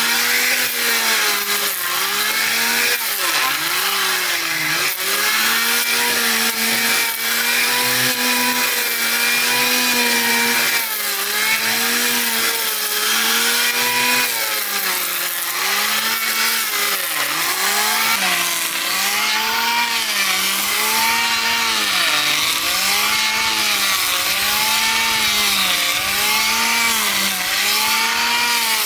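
Power saw cutting wood, its motor running at high speed with the pitch sagging and recovering as it takes load. In the last third the pitch dips regularly, about once a second.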